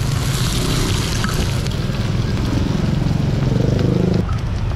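Eggs and rice-flour cakes sizzling on a flat street-food griddle over a steady low rumble. A louder low hum in the rumble cuts off suddenly about four seconds in.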